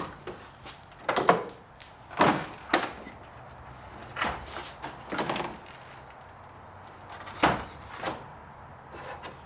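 Sharp plastic clicks and knocks from a Ford F-150's stock grille and its fastening clips as they are pulled and worked loose: about seven separate knocks, spread irregularly over several seconds.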